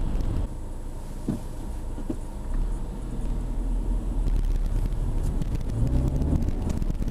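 Steady road and engine rumble inside a moving car, with a few short squeaks from the car, about a second and two seconds in.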